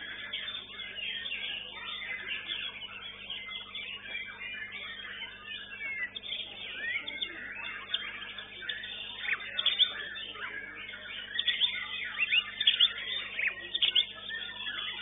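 White-rumped shama (murai batu) singing in a dense, fast run of chirps, whistles and quick rising notes, mixed with the calls of other competing songbirds. The song grows louder and sharper in the second half.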